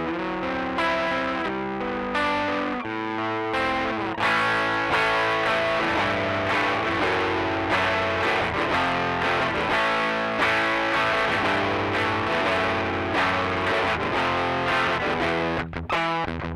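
Electric guitar played through a Rocktron Austin Gold overdrive pedal set with Drive at twelve o'clock and Pre Bass at three o'clock, giving an overdriven tone. Held notes at first, then about four seconds in the playing turns louder and busier.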